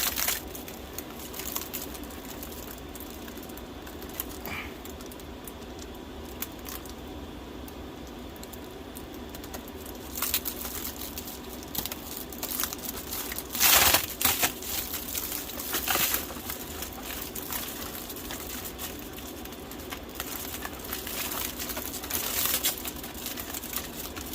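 Flexible foil ducting being handled and fitted: intermittent crinkling and rustling, loudest about fourteen seconds in.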